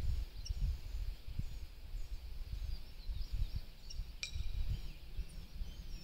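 Birds chirping and calling in the distance over a low, uneven rumble. A single sharp metallic clink with a brief ring sounds about four seconds in.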